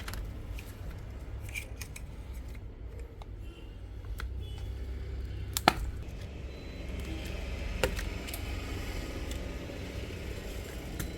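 Small clicks and light scraping of repair tools working on a smartphone's display, with one sharp click about halfway through, over a steady low hum.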